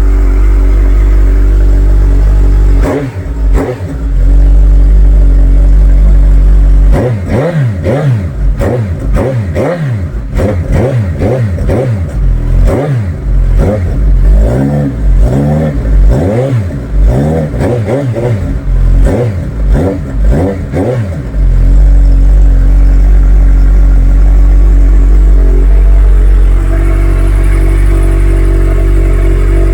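Suzuki GSX-S1000's inline-four engine running through a Black Widow full exhaust system with the baffle in, loud. It idles, is blipped twice about three seconds in, then is revved in a quick series of throttle blips for about fifteen seconds before settling back to a steady idle that drops a little near the end.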